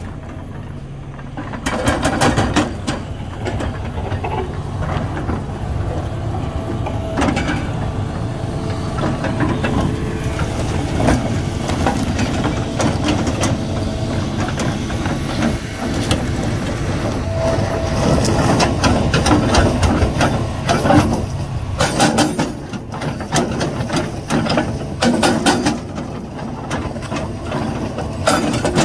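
Hitachi Zaxis 350LC-N excavator's diesel engine running, picking up after a quieter first second or two, with frequent sharp metallic clanks and knocks, several of them close together in the last quarter.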